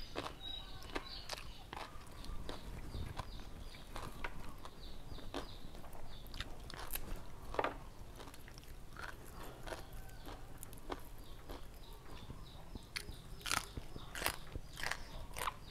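Close-miked chewing and biting of crisp raw vegetables and green papaya salad: irregular wet crunches, a cluster of louder crunches near the end.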